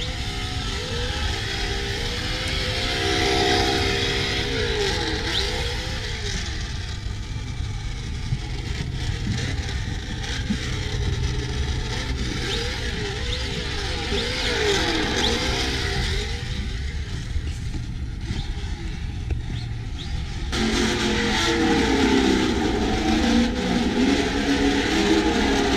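Electric motor of a Vaterra Twin Hammers RC car whining up and down in pitch as it is throttled on and off while driving, with tyre and gravel noise underneath. About 20 seconds in the sound changes suddenly and gets louder.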